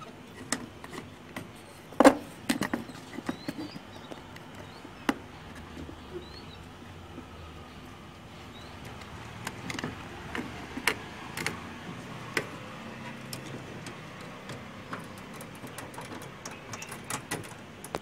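Scattered clicks and knocks from handling a washing machine's control circuit board, plugging its wire-harness connector back on and fitting the board into the panel, the loudest knock about two seconds in.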